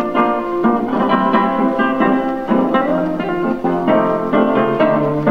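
Two guitars playing an instrumental tango passage with no voice, from a 1926 78 rpm record.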